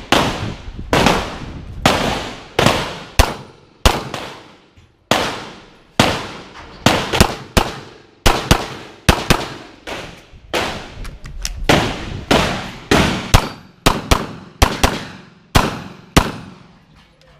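Rapid pistol fire: dozens of sharp, echoing shots in quick strings of two or three, broken by short pauses as a competitor shoots a timed practical-shooting stage.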